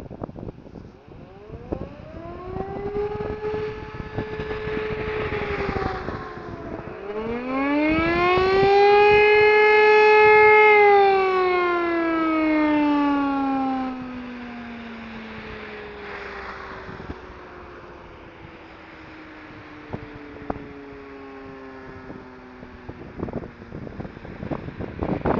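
E57 electric motor sirens sounding the short 'Probe' test signal. One siren winds up about a second and a half in and holds a steady wail. A second, louder one winds up about seven seconds in. Both then wind down in long falling tones that fade out near the end.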